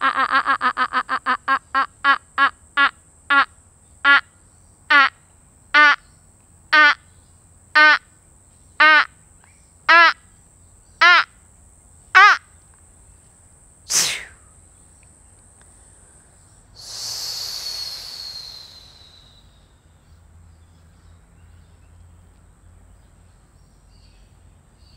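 A woman's voice makes a run of short pitched 'ha' pulses in light-language vocal toning, quick at first and slowing to about one a second, stopping about twelve seconds in. A single sharp high sound comes about two seconds later, then a hissing sound with a falling whistle lasting a couple of seconds.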